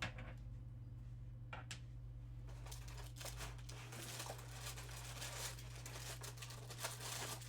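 Packaging rustling and crinkling as the lightsaber's display stand is unwrapped and lifted out of its box, with a couple of light knocks in the first two seconds; a steady low electrical hum runs underneath.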